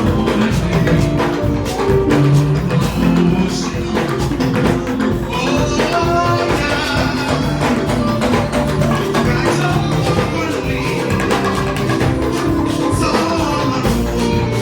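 Church band music with drums and percussion playing a rhythmic anthem.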